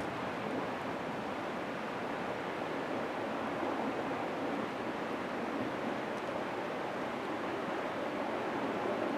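Steady rushing rumble of a distant avalanche, snow pouring down a mountainside, holding an even level throughout.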